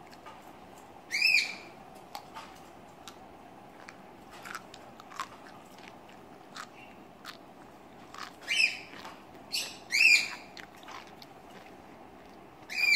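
A person chewing fresh raw seaweed: soft wet crunching and many small mouth clicks. A bird chirps loudly four times over it, about a second in, twice in the second half, and at the very end.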